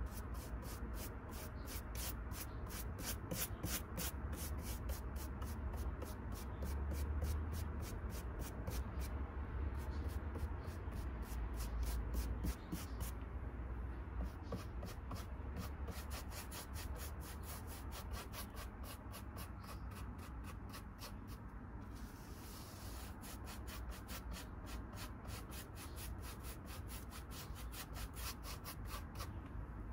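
A paintbrush scrubbing paint onto a model railway baseboard in quick, repeated back-and-forth strokes, with a couple of short pauses.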